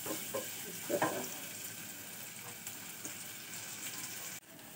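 Sliced onions sizzling in hot oil in an aluminium pressure cooker, with a wooden spatula stirring them at first. The sizzle is steady and drops away abruptly near the end.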